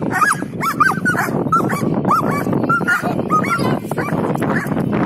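Young German Shepherd whining and yipping in rapid high-pitched cries, about three a second, thinning out near the end. These are the excited, frustrated cries of a protection-training dog held back by its harness, straining to go for the helper.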